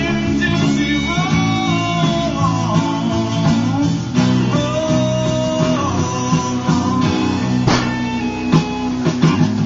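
Guitar-led music with a repeating bass line and sliding lead notes.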